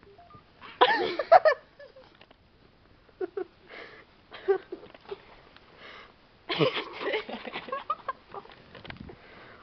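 A person's wordless vocal sounds in short bursts, loudest about a second in and again around seven seconds in.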